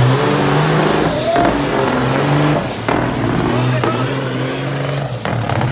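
Diesel semi-truck engines at full throttle in a drag-race launch, pulling hard under load. The engine note climbs and drops back with each gear shift, about every second and a half, with a high whistle rising and dipping above it.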